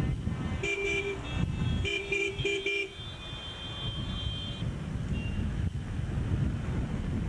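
Car horns tooting in two bursts of short blasts, a couple of toots about a second in and then a quick run of four, as a line of taxis drives past. A thinner, higher horn tone follows for about a second and a half, over a low rumble of passing engines and wind.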